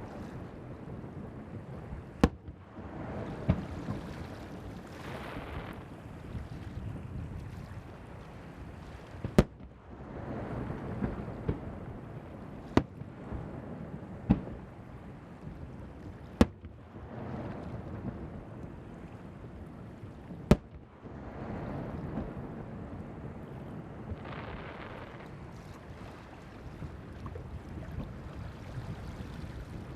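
Fireworks shells bursting over the sea: about eight sharp cracks a few seconds apart, over a rolling rumble of launches and bursts, with wind on the microphone.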